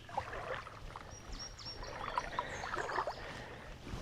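Lakeside ambience: frogs calling in scattered short chirps and clicks, over faint water sounds.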